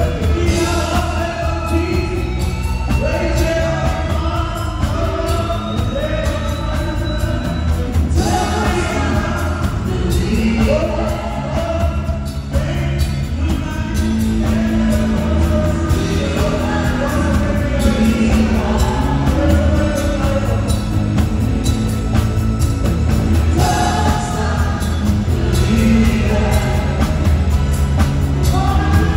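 Live pop band playing through a PA system, several singers trading and joining on sung lines over amplified bass guitar and keyboard, with strong, steady bass.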